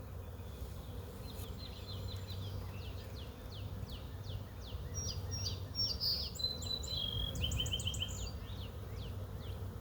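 Honey bee swarm buzzing, a steady low hum. From about a second in until near the end, a bird sings a long run of quick high chirps over it.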